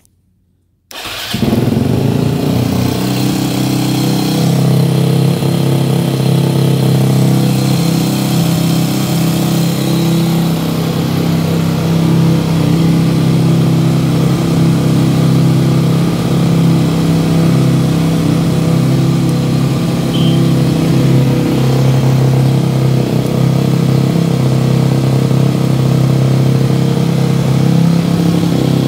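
Yamaha WR250F's 250 cc four-stroke single-cylinder engine starts about a second in and then runs steadily.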